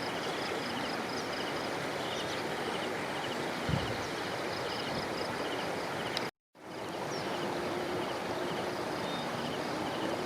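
Steady rush of flowing floodwater, with insects chirping in a repeated pattern over it. The sound cuts out completely for a moment about six seconds in.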